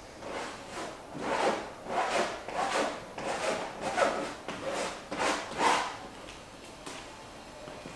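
Strokes being worked onto a large textured canvas: a run of rough rubbing strokes, about two a second, that stop about six seconds in.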